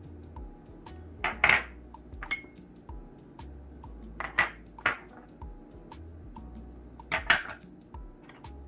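Small ceramic dishes clinking and tapping against a ceramic bowl as spices are tipped in, in short clusters about a second in, around four seconds and about seven seconds. Faint background music underneath.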